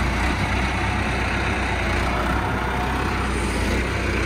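Diesel engine of a Case IH front-end loader tractor running steadily as the tractor creeps up to the car with its bucket lowered.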